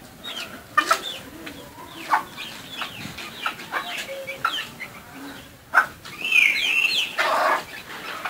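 Domestic chickens clucking, a run of short calls, with one louder wavering squawk about six seconds in followed by a short noisy rustle.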